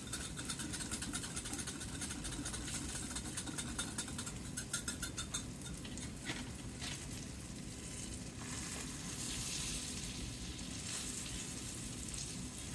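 Tofu pieces sizzling in sesame oil in a skillet, a steady frying hiss. For about the first five seconds there are quick, even clicks from stirring the sauce.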